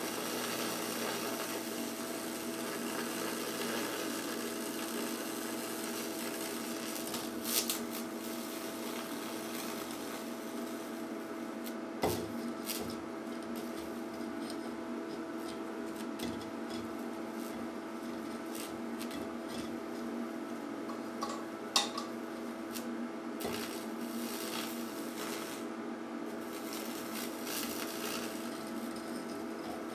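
High-voltage electrical discharge crackling and fizzing as it burns branching tracks through a salt-water-wetted mahogany board, powered by a 12 kV neon sign transformer, over a steady electrical hum, with a few louder snaps.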